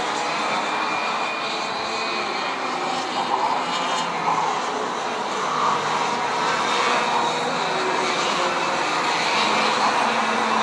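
Several ROK Senior racing karts' 125cc two-stroke engines buzzing on track, their pitch rising and falling as they brake and accelerate through the corners. The sound grows a little louder in the second half.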